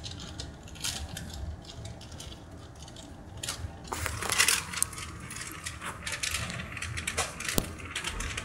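Inside a Puyuma Express tilting-train carriage standing at the platform: a low steady hum under scattered clicks, knocks and rustling, with a brief louder rush of noise about four seconds in.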